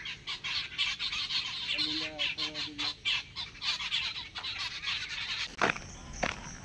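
Many birds chirping densely in the trees at dawn, with three short pitched calls from a larger bird about two seconds in. Two thuds of footsteps near the end.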